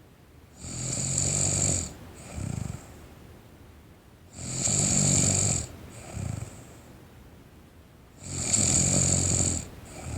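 A teenage girl snoring in her sleep: three long snores about four seconds apart, each followed by a shorter, softer sound.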